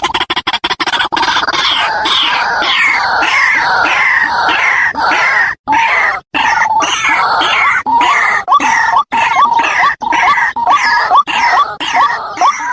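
White-breasted waterhen (ruak-ruak) calling: loud, harsh notes repeated in a steady rhythm of about two a second, as played for a hunting lure.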